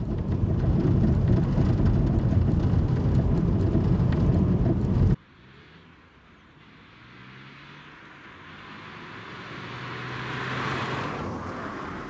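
Inside a moving car's cabin: steady low road and engine rumble with a patter of small rattles. It cuts off suddenly about five seconds in and gives way to much quieter outdoor sound, in which a passing vehicle's tyre and engine noise swells to a peak near the end and then eases off.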